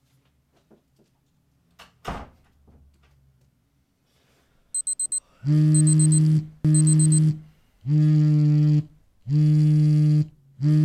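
A smartphone going off with an incoming call. A few quick high beeps come first, then a loud, steady, low buzzing alert repeats five times in roughly one-second bursts with short gaps. A single thud comes about two seconds in.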